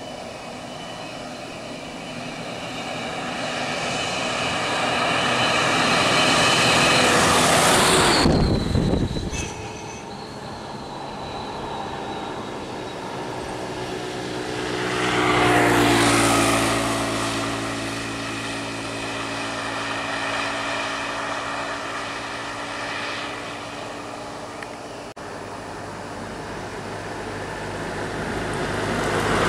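Motor vehicles passing close by on a road, one after another. One builds up and goes by about eight seconds in. Another passes around sixteen seconds with its engine note falling as it moves away, and a third draws near at the end.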